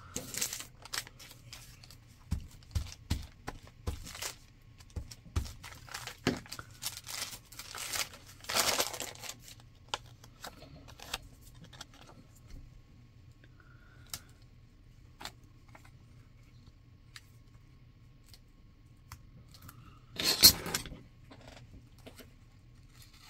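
Magazine paper cutouts being handled: scattered light rustles, crinkles and taps, with a louder paper rustle about nine seconds in and the loudest one, a brief crackle, about twenty seconds in. Near the end, scissors cut the paper.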